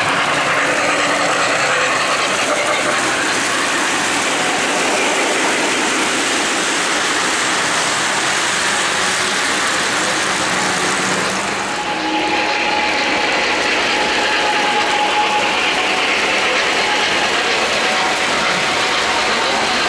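O-gauge model trains running on three-rail track: a steady metallic clatter of wheels and gear-driven motors. About twelve seconds in the sound shifts and a thin steady tone joins it.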